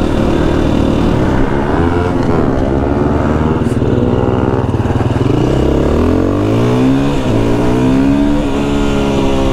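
Husqvarna FE 350 single-cylinder four-stroke enduro motorcycle under way, revving up and dropping back several times as it accelerates and shifts gears.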